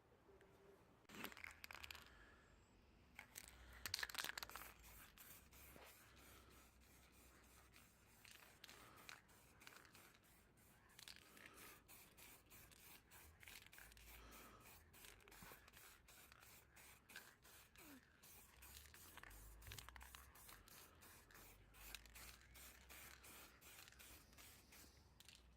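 Faint, irregular crackling and tearing of masking tape being peeled off a freshly painted block plane, a little louder about a second in and again around four seconds in.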